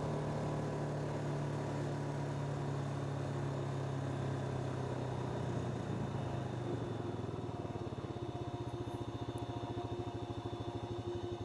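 ATV engine running as it rides along, a steady drone that about two-thirds of the way through changes to an even, rapid pulsing as the machine slows toward idle.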